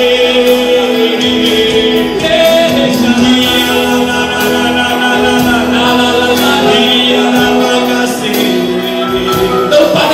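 Gospel worship song: singing voices holding long notes over instrumental backing.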